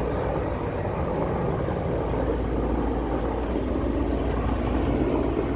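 Steady, unbroken low engine rumble with a noisy wash over it.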